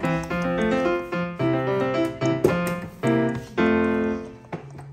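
Background piano music: a run of short notes, with a chord held briefly near the end.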